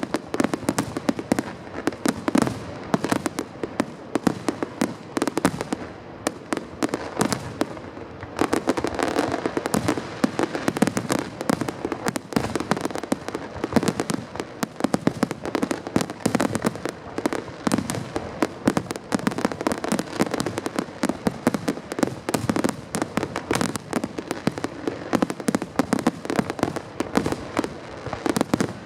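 Fireworks finale: a dense, continuous barrage of shell bursts and crackling, with a brief slightly thinner spell about six to eight seconds in.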